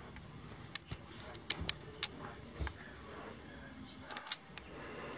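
Scattered faint clicks and light knocks, about eight over a few seconds, over low room noise: handling noise of a handheld camera being moved around.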